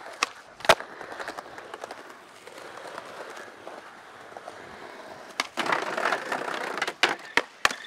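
Skateboard wheels rolling on concrete pavement, with sharp pops and clacks of the deck near the start. About five seconds in, the board scrapes along a wooden ledge for about a second and a half, then comes down with a few sharp clacks.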